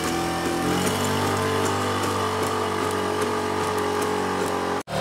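Engine and hydraulic power unit of the LS3 legged robot running steadily as it walks, with a step up in pitch about a second in. The sound cuts out for an instant near the end.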